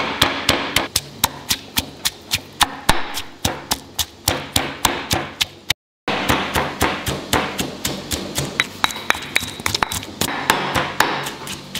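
Pestle pounding curry paste in a mortar: quick, regular knocks about three to four a second, crushing chili, garlic and fresh turmeric into the lemongrass and fingerroot paste. There is a short break near the middle.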